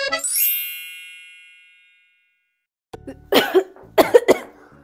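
A music sting ends in a quick rising shimmer that rings on and fades over about two seconds. After a short silence, a person coughs several times, about three to four and a half seconds in.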